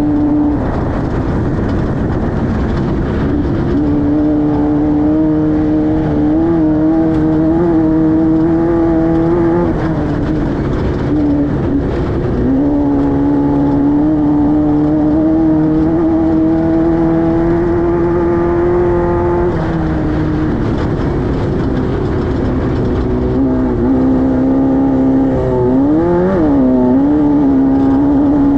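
Class 5-1600 off-road race car's air-cooled 1600 cc Volkswagen flat-four running hard under load. The revs hold fairly steady, drop briefly a few times, with a quick dip and climb near the end, and rise again, over a constant rushing noise.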